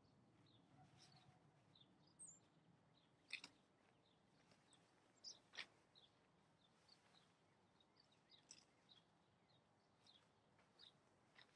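Near silence with faint bird chirps now and then and a few faint clicks, the clearest about three and a half and five and a half seconds in.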